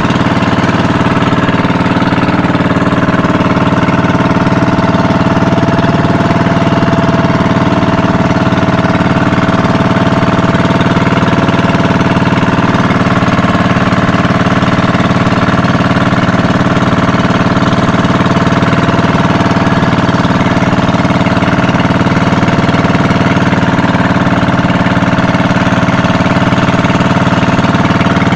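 Engine of a small motorized outrigger boat (bangka) running loud and steady at an even speed, its pitch barely changing.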